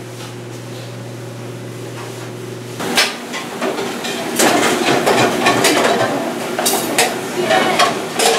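A steady low hum, which stops about three seconds in. Then plates, glasses and dish racks clatter and clank repeatedly as dishes are handled at a commercial dishwashing station.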